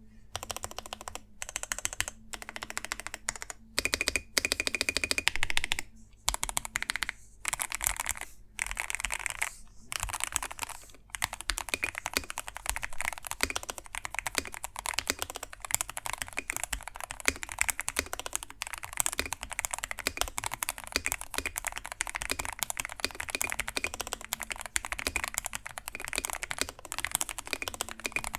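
Typing on an 84-key 75% mechanical keyboard with Gateron Pro Silver linear switches. For about the first eleven seconds the keystrokes come in short rapid bursts with brief pauses, then they settle into steady continuous typing.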